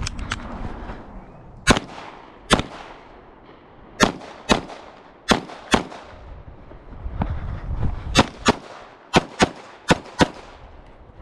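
Pistol shots on a shooting range: about a dozen sharp reports at irregular intervals, several coming in quick pairs, each with a short echoing tail.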